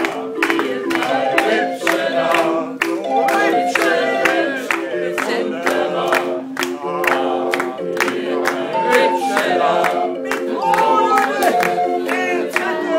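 Street barrel organ (Drehorgel) playing a tune in held pipe notes over a steady beat, with a man singing along to it.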